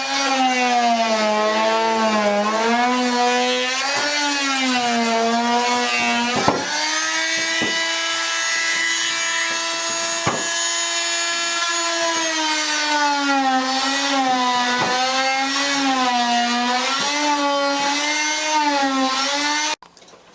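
Handheld electric power saw cutting through wooden layout benchwork. Its motor pitch wavers up and down as the load changes, with a few sharp cracks along the way, and it stops suddenly just before the end.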